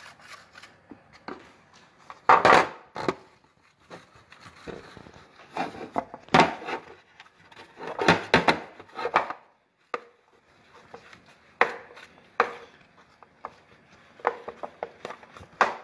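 A hand rubbing lard over the inside of a metal cake tin, working it into the corners and sides: irregular scuffing strokes of skin on metal, the loudest about two and a half seconds in and again around six and eight seconds.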